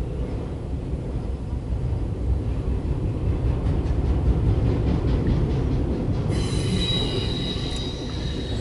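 Loaded autorack freight train rolling past: a steady low rumble of the railcars, joined about six seconds in by a sudden high, sustained wheel squeal.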